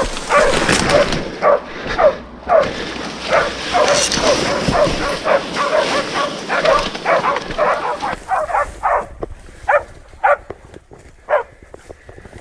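Pig-hunting dogs barking repeatedly, about two barks a second, as they bay a boar they have bailed up. A steady rushing noise runs under the barks for the first two-thirds, after which the barking goes on more sparsely against a quieter background.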